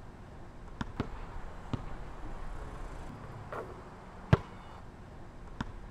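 A basketball bouncing on an outdoor court, a few separate bounces at uneven intervals, the loudest about four seconds in.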